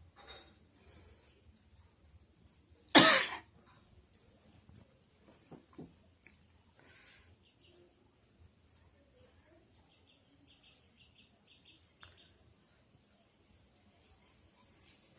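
A person sneezes once, loudly and briefly, about three seconds in. Crickets chirp steadily in the background, about three high chirps a second.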